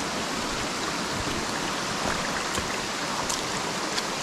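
Steady rush of water from a waterfall and its stream, with a few faint ticks over it.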